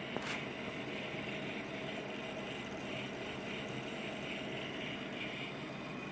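Steady machine hum and whir from a DC drive test run. A single sharp click comes a fraction of a second in.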